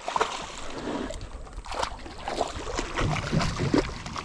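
Water splashing and sloshing with irregular knocks around a small boat.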